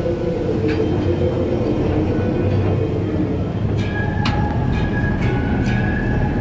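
Amusement-park mine ride train running steadily along its track: a continuous low rumble with scattered wheel clicks, a run of clicks about two-thirds through, and a thin steady high tone joining around the same point.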